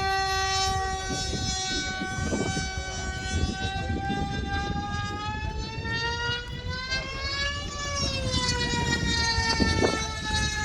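Radio-controlled model airplane's motor and propeller whining steadily, its pitch rising and then falling once about seven to eight seconds in, over a low rumble.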